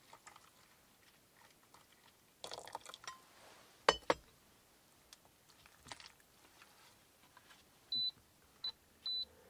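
Two sharp knocks about four seconds in, then three short, high, steady beeps near the end from an induction cooktop's control buttons as it is switched on.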